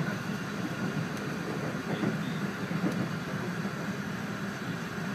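Running noise heard inside the cabin of an E4 series Max Shinkansen train: a steady low drone under an even rushing hiss.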